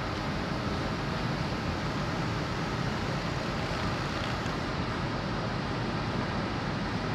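Steady rumble and hiss of the ferry Sunflower Murasaki's machinery, heard from its open deck while it is being moored at the quay.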